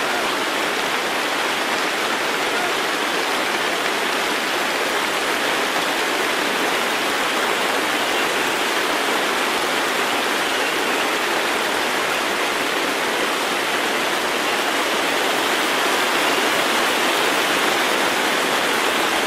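A large concert audience applauding steadily, a dense, even wash of clapping.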